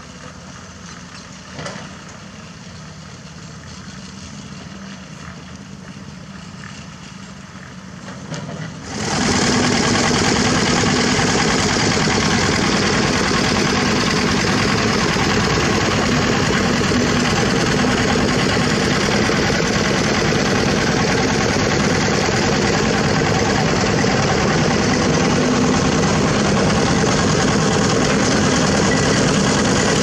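A diesel engine working in the background, then about nine seconds in a much louder engine close by comes in suddenly and runs steadily with a low hum.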